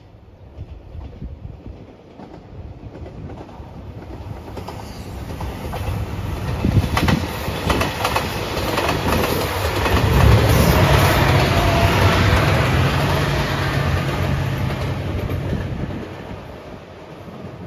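A JR Shikoku 2700 series diesel limited express train passes at speed: engine drone, with wheels clacking over rail joints. The noise grows from a few seconds in, is loudest past the middle, and falls away near the end.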